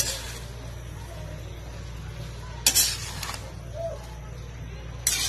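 Metal utensil scraping and clanking against a metal pan while stir-frying bitter gourd, chicken and glass noodles: three short bursts, the second and longest about three seconds in, over a steady low hum.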